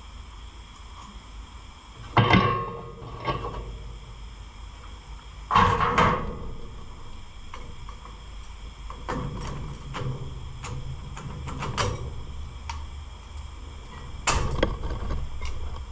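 Hand tools and metal engine parts clanking and knocking during engine teardown: loud clatters about two and six seconds in, a run of lighter clicks and taps, then another loud clatter near the end.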